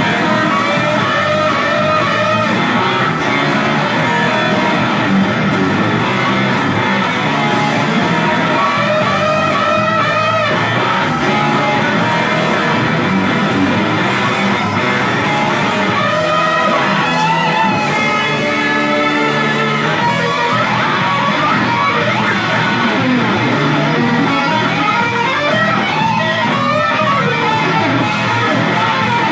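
Instrumental rock music led by electric guitar, continuous and loud, with wavering, bending melody lines.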